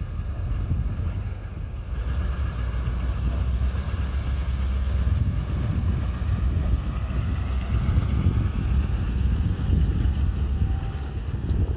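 Engine of a medium-duty bucket truck running as the truck drives slowly across the lot, with a steady low rumble.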